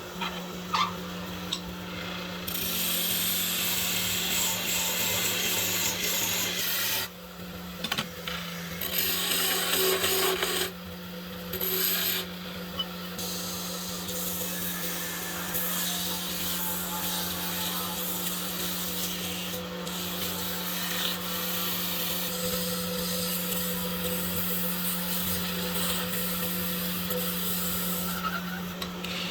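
Wood being rubbed with an abrasive, a continuous rasping scrape with short breaks about seven and eleven seconds in, over a steady low hum.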